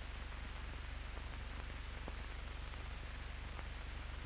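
Old optical film soundtrack noise: a steady hiss over a low hum, with a few faint clicks.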